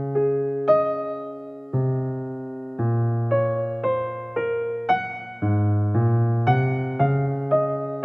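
Soft background music on a keyboard instrument: single notes and chords struck about once or twice a second, each left to ring and fade.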